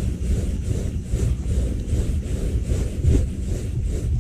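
Low, steady rumble of wind and rubbing handling noise on the microphone.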